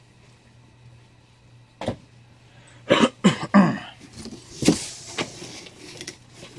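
Comic books and a corrugated cardboard shipping box being handled: a sharp click about two seconds in, then paper rustling and light knocks from about four seconds on. A short vocal sound, like a cough or grunt, comes about three seconds in, over a low steady hum.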